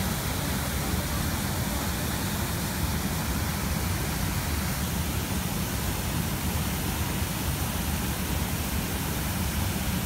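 Waterfall pouring over a rock ledge into a plunge pool: a steady, even rush of falling water.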